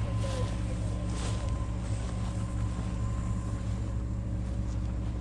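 Pickup truck engine running at a steady low drone as the truck rolls slowly along a grassy field track, heard from outside the cab with some wind on the microphone.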